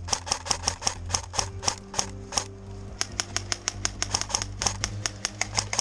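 Airsoft guns firing in rapid semi-automatic shots, sharp clicks coming about five or six a second with a brief lull midway.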